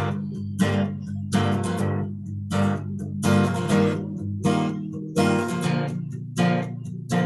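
Acoustic guitar strummed in a steady rhythm, about one strum every three-quarters of a second, each chord ringing on until the next: an instrumental break in a slow country song with no singing.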